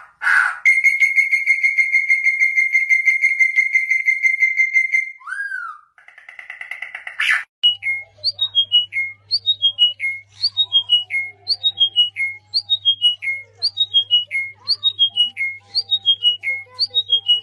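Bird calls: a rapid, even trill held for about four seconds, a brief buzzy call, then a short falling call repeated nearly twice a second over a faint low hum.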